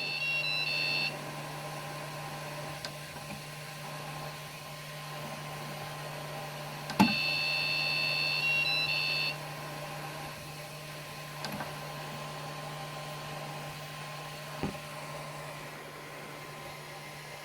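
MakerBot 3D printer's extruder stepper motor whining for about two seconds as it pushes out plastic filament. It runs once at the start and again from about 7 s in, each run starting with a click and its tone shifting in steps just before it stops. The machine's fan hums steadily underneath.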